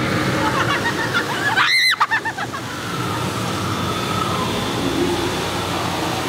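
A short, high-pitched shriek about two seconds in, rising and falling in pitch, over a steady noisy din from the haunted attraction's background soundscape.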